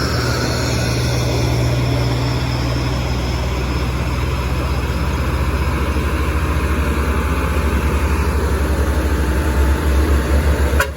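Heavy truck's diesel engine running under load on a steep climb: a low steady drone whose rhythmic pulsing grows more distinct in the second half.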